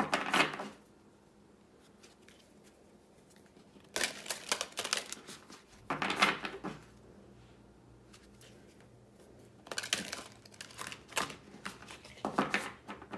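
A deck of oracle cards being shuffled by hand: about five short bursts of rapid card flicking and slapping, with quiet pauses between.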